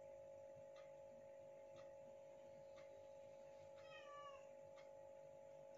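A cat gives one short, faint meow, falling in pitch, about four seconds in, over a steady low hum and soft ticking about once a second.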